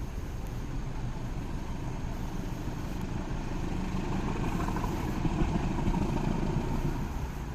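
Road traffic with motorcycle engines running, swelling as a vehicle passes close between about four and seven seconds in, then fading.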